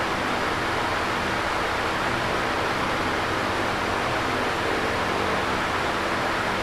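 Electric fan running steadily: an even, constant whoosh of moving air with a faint low hum beneath.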